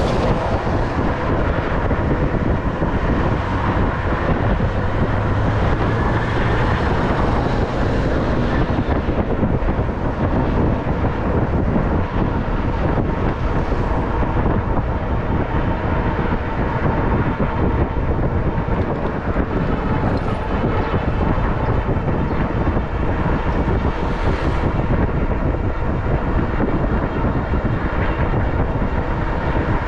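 Steady wind rush on the microphone and road noise from a moving bicycle, with a faint steady hum underneath.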